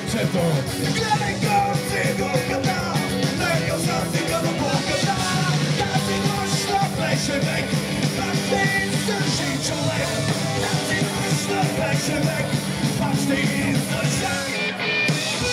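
Live punk rock band playing electric guitar, bass and drum kit, with a singer shouting vocals into a microphone over the PA.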